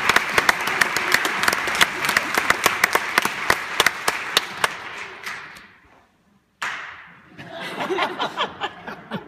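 Theatre audience applauding, the dense clapping dying away over about five seconds. After a short lull, a few scattered claps and some voices follow.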